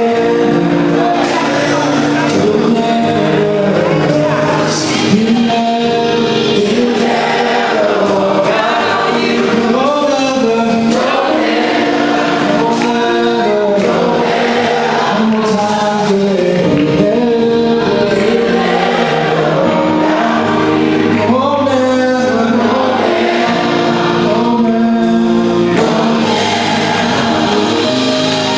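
Gospel choir singing with electric keyboard accompaniment, continuous and steady in loudness.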